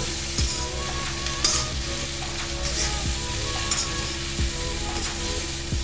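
Steel ladle stirring and scraping capsicum and soya chunks around an iron kadhai, with the food sizzling in hot oil and the ladle knocking against the pan a few times. A steady low hum runs underneath.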